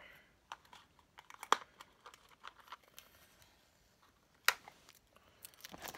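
Sticky tape being picked at and peeled off a small package by hand, with faint crinkling and scattered small clicks, and two sharp snaps, about a second and a half in and about four and a half seconds in.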